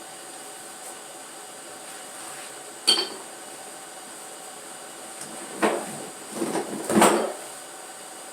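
Metal engine parts and tools being handled: a sharp metallic clink with a short ring about three seconds in, then a run of knocks and clatter later on, over a steady background hum.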